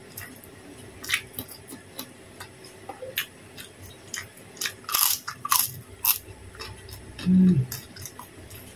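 A person eating close to the microphone: chewing with scattered sharp mouth clicks and crunches, most of them clustered about halfway through. A short hummed 'mm' comes near the end.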